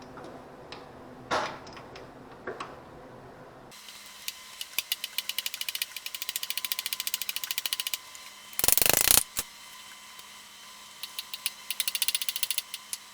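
Hand socket ratchet clicking in quick runs as bolts are backed out, with a few knocks near the start and a brief loud clatter partway through.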